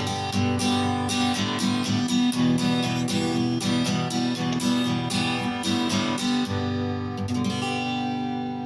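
Acoustic guitar strummed in a steady rhythm, thinning to a few last strokes about seven seconds in and ending on a chord left to ring and fade.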